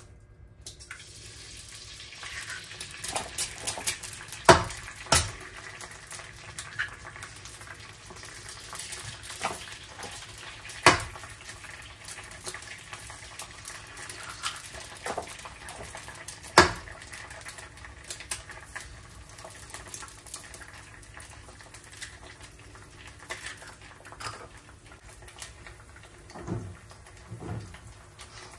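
Eggs cracked against the rim of a frying pan, giving several sharp knocks, over the steady sizzle of eggs frying in the hot pan.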